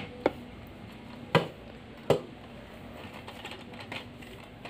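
Sharp clicks and clacks of a metal light-stand tripod's legs and joints being handled and spread open: three loud clacks in the first two seconds, then lighter ticking.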